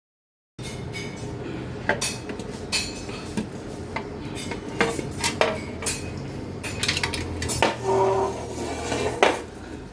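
Royal Enfield Machismo front fork clanking, a dozen or so sharp, irregular metallic clicks and knocks over a steady low hum; the fork noise is put down to an over-long fork spring having been fitted.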